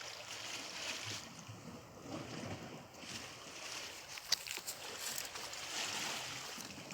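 Sea and wind noise at the shore, a hiss that swells and eases every second or two, with one sharp click about four seconds in.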